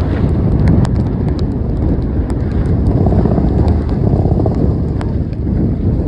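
Strong wind buffeting a phone's microphone on a sailboat under way in choppy water: a loud, steady rumble with scattered light clicks.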